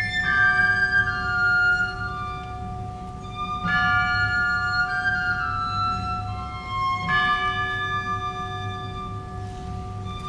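Wind band playing a slow passage: long held chords with a woodwind melody moving above them. New phrases come in about a third and two thirds of the way through.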